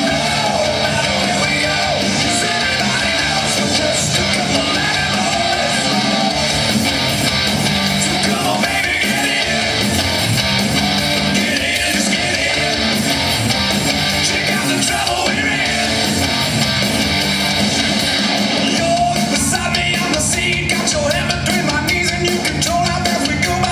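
Loud rock music with a singer and guitar, playing steadily with a regular beat.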